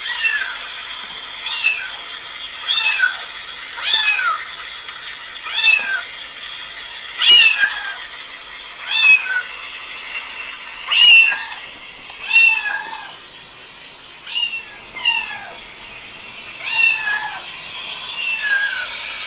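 Recorded cat meows played from a laptop's speaker, repeating about once a second and sometimes in quick pairs, each a short call that falls in pitch.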